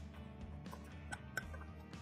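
Background music with low sustained notes, over which a steel pick ticks a few times against rust and metal inside a corroded pistol frame, a little after a second in.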